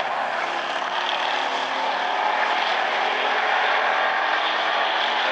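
A field of hobby stock race cars running around a short oval track: a steady, dense engine drone from several cars at once, swelling slightly as the pack comes closer.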